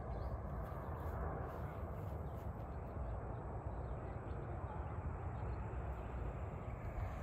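Steady outdoor background noise: an even low rumble with a faint hiss above it and no distinct events.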